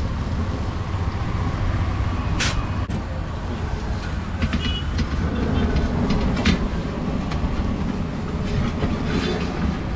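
Beaten eggs frying in oil on a large flat iron griddle (tawa), with a sharp click of the metal spatula against the iron twice, about two and a half and six and a half seconds in. A steady low rumble runs under it.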